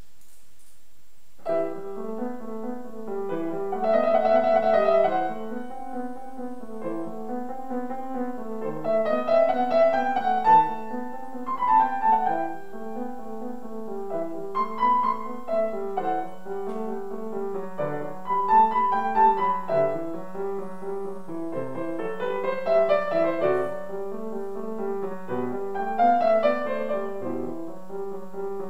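Grand piano played solo: a classical piece begins about a second and a half in, with a repeating low accompaniment under the melody.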